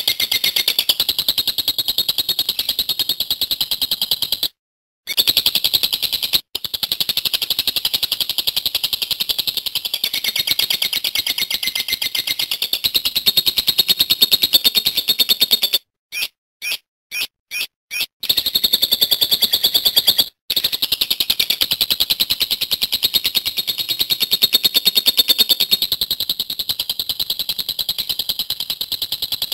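Lovebird ngekek: a long, high, very rapid chattering trill of fast repeated notes, running on in long strings broken only by a few short gaps and a flurry of short bursts about halfway through.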